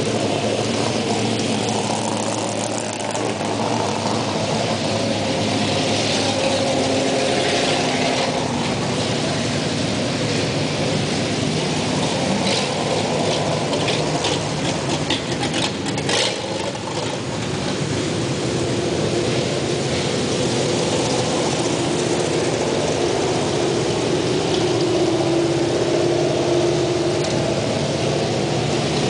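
Vintage race cars' engines rumbling as the cars drive past one after another on a dirt track, the engine note swelling and fading as each goes by. Scattered ticks and crackles come through the middle stretch.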